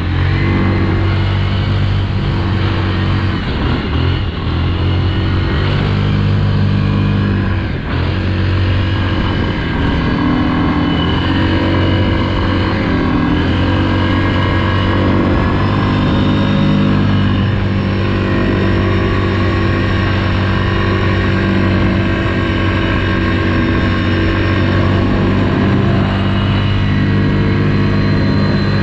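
Yamaha Grizzly EPS SE ATV's single-cylinder engine running steadily under way at speed, easing off briefly about four and eight seconds in before holding a steady pitch again.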